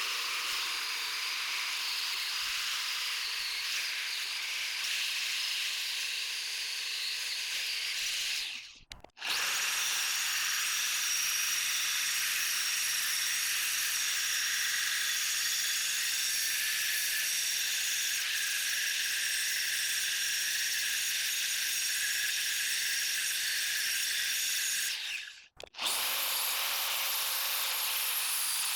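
Angle grinder running steadily with a high-pitched whine, grinding down the edges and horn of an anvil. The sound cuts out abruptly about 9 seconds in and again near the end, and comes straight back each time.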